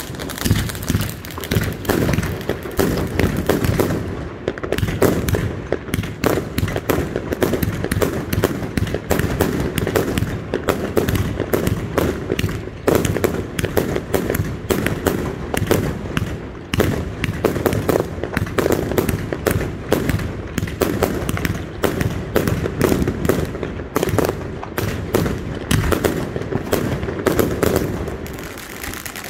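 Many fireworks going off at once: a dense, continuous run of bangs and crackles, overlapping with no real gaps.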